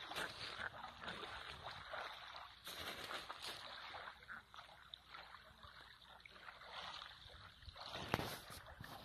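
Small waves lapping and splashing at the edge of a lake in faint, irregular swishes, with one sharper splash near the end.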